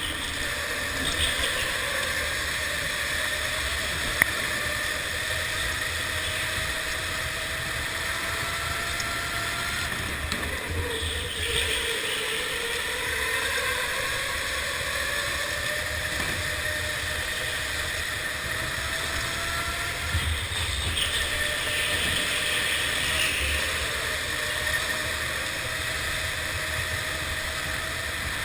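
Electric go-kart motor whining, the pitch rising and falling as the kart speeds up and slows through the corners, over a steady rush of tyre and air noise heard from on board. There is one sharp click about four seconds in.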